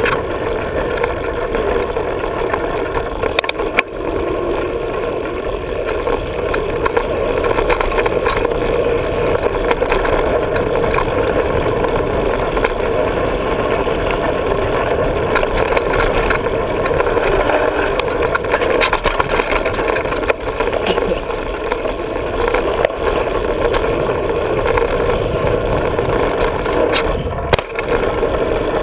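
Diamondback hardtail 29er mountain bike riding fast down a dirt trail: a steady rush of wind and tyre noise, with the bike knocking and rattling over bumps now and then.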